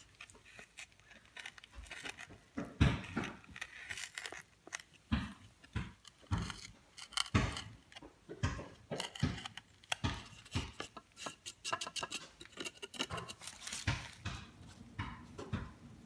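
A knife blade cutting and scraping into a wooden bow drill hearth board as notches are carved: irregular short cuts and scrapes, some quick runs of strokes.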